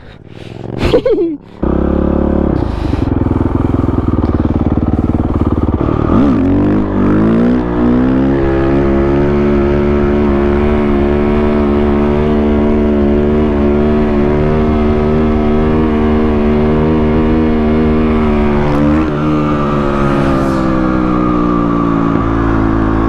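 Motorcycle engine pulling away, its pitch climbing for several seconds and then holding a steady drone at riding speed, heard from on the bike.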